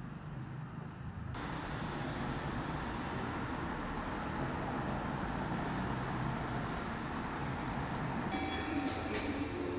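A steady low rumble of vehicles comes up about a second in and holds level. Faint high tones and a few clicks join near the end.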